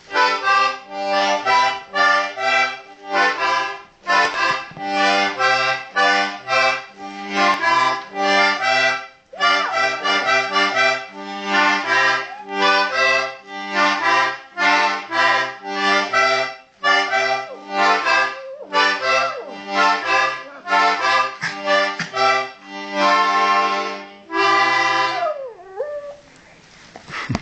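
Accordion played in a bouncy rhythm of chords over bass notes. A Yorkshire terrier howls along in places, with a falling howl just after the playing stops near the end.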